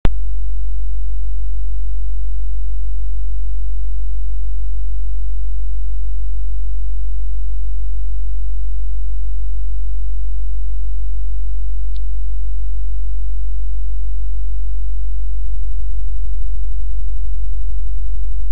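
A steady, loud low hum, with no speech and no other sound apart from one faint tick about two-thirds of the way through; the hum turns slightly rougher near the end.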